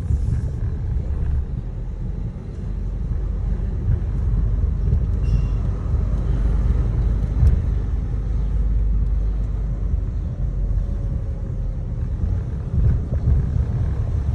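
Car driving slowly, heard from inside the cabin: a steady low rumble of engine and tyre noise.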